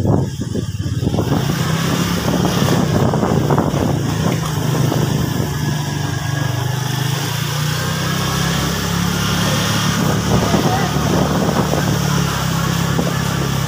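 Motorcycle engine running steadily while riding along, heard from the rider's seat.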